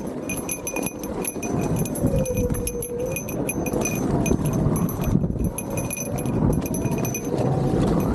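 Fast, irregular metallic jingling and rattling from a bike ridden over a bumpy trail, with a mid-pitched hum that rises and falls in pitch.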